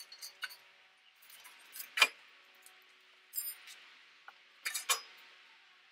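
Hand tools clinking and tapping against metal: a scattered run of sharp metallic clicks, the loudest about two seconds in and a quick cluster near the end.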